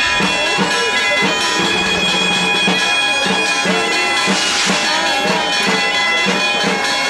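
Asturian bagpipe (gaita) playing a tune over its steady drone, cutting in suddenly.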